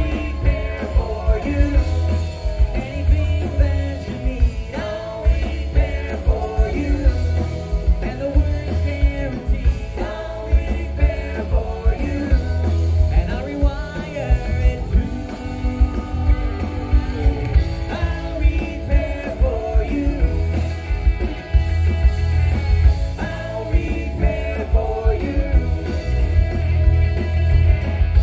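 Live rock band playing an upbeat pop-rock song, a lead voice singing over a steady drum beat, bass and guitars.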